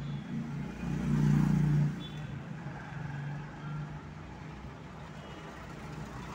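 Motor-vehicle engine running with a low hum, swelling louder for about a second from a second in, then settling back to a steady level.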